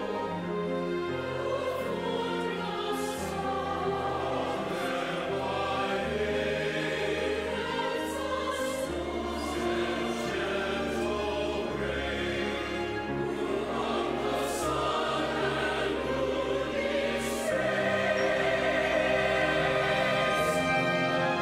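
Church choir singing in parts with a chamber orchestra of flutes, clarinets, violins, double bass and harp. The music grows louder about three-quarters of the way through.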